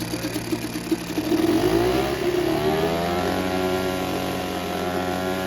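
British Seagull two-stroke outboard motor running with a rapid, even firing beat. About a second in it is revved up, and the pitch climbs and then holds at a higher steady speed. The engine has been freshly rebuilt after being recovered from a lake bed.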